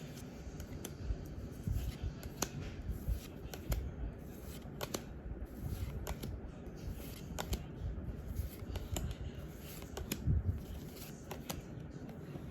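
Pokémon trading cards being handled and flipped through one at a time: irregular sharp snaps and slides of card stock, roughly one a second, over low rustling handling noise.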